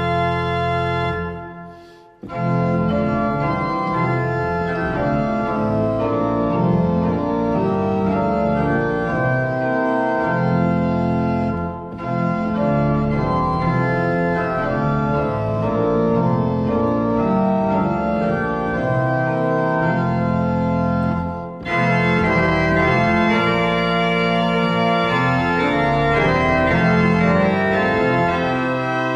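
Organ music playing sustained chords. It fades out about two seconds in and a new piece starts at once, and the music breaks briefly twice more before carrying on.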